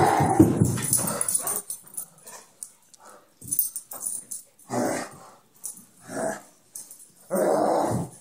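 Dog-like growls and barks in short separate bursts. A long loud burst comes at the start, then shorter ones about a second apart, and a longer growl near the end.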